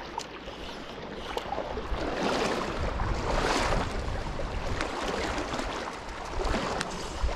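Shallow stream water rushing over a gravel bed, a steady wash that grows louder for a few seconds in the middle and then eases.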